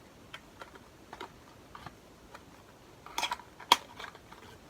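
Small clicks and taps of a cardboard advent-calendar box being handled and opened, with a short rustle a little after three seconds and one sharp click just after it.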